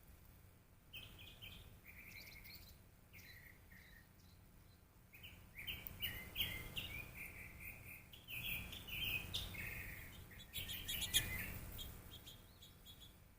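Small birds at a bird feeder chirping: many short, quick chirps, growing busier and louder in the middle. A brief cluster of sharp clicks near the end is the loudest moment.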